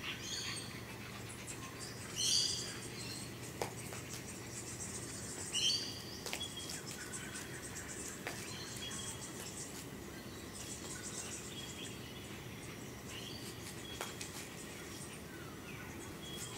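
Birds calling over a steady high hiss of insects: a few short calls, the loudest about two seconds in and another near six seconds.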